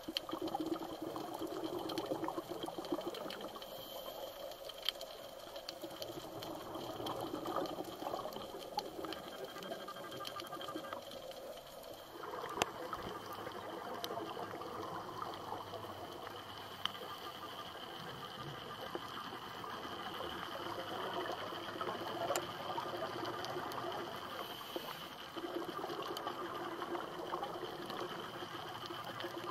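Underwater sound heard through an action camera's waterproof housing: a steady, muffled wash of water noise with scattered faint clicks. The noise steps up in level about twelve seconds in.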